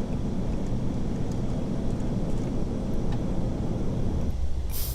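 Steady rumbling flight-deck noise of an Airbus A380 in descent, the rush of air and engines. It eases a little after four seconds, and a sharp click sounds near the end.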